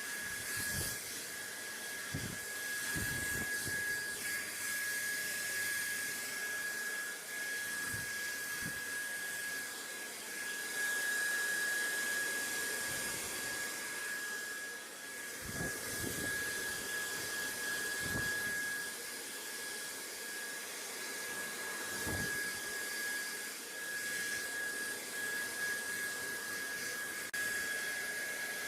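Steady rushing noise from a running machine, with a constant high whine over it and a few soft low thumps.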